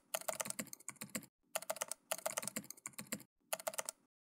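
Computer keyboard typing sound effect: rapid keystroke clicks in three runs, with short breaks about a second and a half in and about three seconds in, stopping just before the end.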